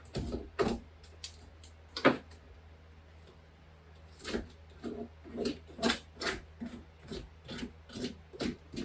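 Knife scraping and cutting along the edge of old drywall to clean it up. There are a few separate strokes at first, then a run of about ten quick strokes, roughly two a second.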